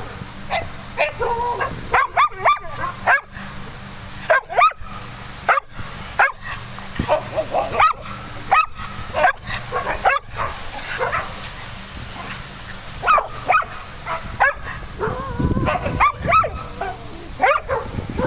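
Dogs barking at play: short, sharp barks in quick clusters, about one to two a second.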